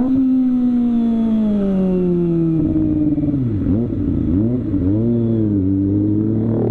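Kawasaki ZX-25R's 250 cc inline-four engine, through a CLD aftermarket exhaust, with its revs falling steadily as the bike slows, wavering up and down about halfway through, then running steadily at low revs.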